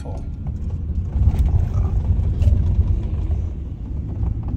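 Low rumble of a moving car heard from inside it, swelling louder for a couple of seconds in the middle.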